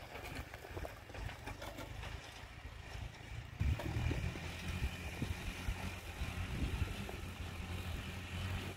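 Tractor engine running steadily, becoming plainly louder about three and a half seconds in. Before that there is a low, wind-like rumble.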